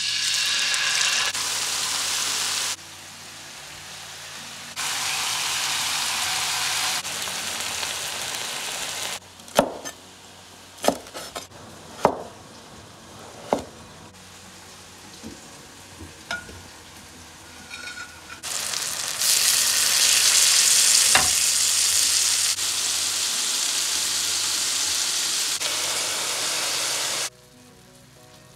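Marinated chicken pieces sizzling in hot olive oil in a frying pan, in loud stretches that start and stop abruptly. In the middle comes a quieter spell of a handful of sharp knife strikes on a wooden cutting board as a cucumber is sliced.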